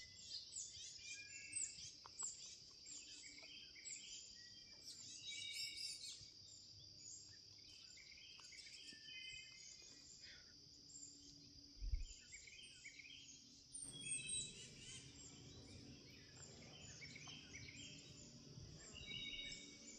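Faint outdoor ambience of small birds chirping and twittering throughout, over a steady high-pitched hum. There is a brief low thump about halfway through.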